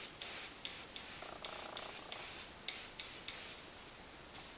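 Airbrush spraying in about ten short bursts of hiss as the trigger is pulsed on and off. The bursts stop about three and a half seconds in.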